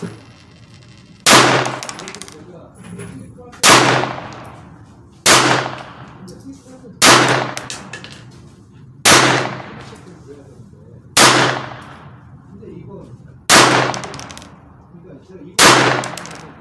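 Browning Buck Mark .22 LR semi-automatic pistol fired eight times in slow, deliberate single shots about two seconds apart, each crack followed by a short echoing tail.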